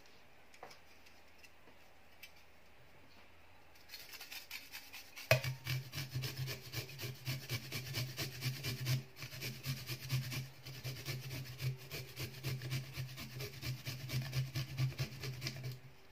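Garlic cloves rubbed back and forth on a perforated stainless steel hand grater, a quick run of rasping strokes that starts about four seconds in after a quiet spell. A low steady hum sits underneath the grating from about five seconds in.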